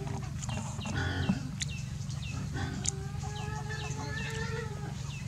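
A rooster crowing: one long held call starting about halfway through, over repeated short high chirps and a steady low hum.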